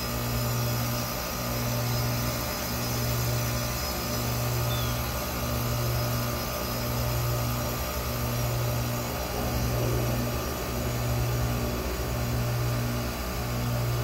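Bryant heat pump outdoor unit in its defrost cycle with the outdoor fan stopped: a steady compressor hum whose low tone swells and fades about every second and a quarter.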